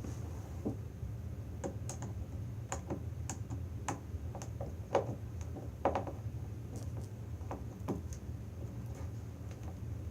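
Irregular small clicks and taps of a screw-terminal BNC connector being handled as a solid blue Cat5 wire is worked into its terminal, over a steady low hum.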